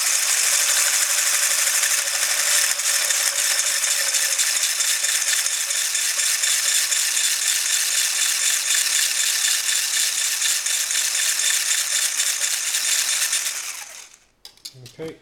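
Eggs and milk being whisked in a bowl: a fast, steady rattle of the whisk against the bowl that stops suddenly near the end.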